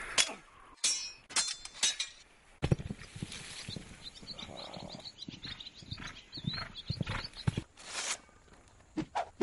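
Horse hooves thudding in an uneven run through the middle, with several sharp cracks in the first two seconds and another about eight seconds in.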